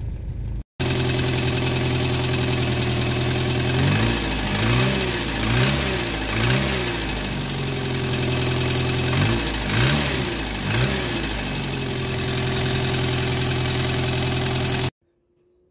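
1985 Renault 5 GTL's carburetted four-cylinder engine idling steadily, then revved by hand at the carburettor throttle linkage: several quick blips around four seconds in and again around nine seconds in. The owner calls this engine completely shot.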